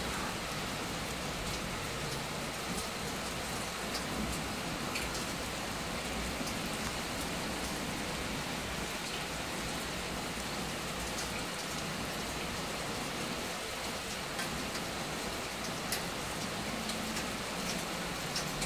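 Steady rain pouring down, with a few single drops ticking sharply close to the microphone.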